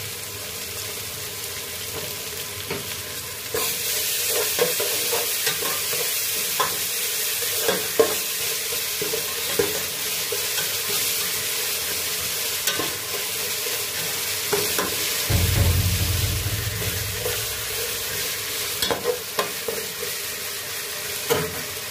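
Onions, green chillies and ginger-garlic paste sizzling in hot oil in a metal pot, fried down for a curry base while a spatula scrapes and knocks against the pot. The sizzle gets louder about three and a half seconds in, and a low rumble joins for a few seconds after the middle.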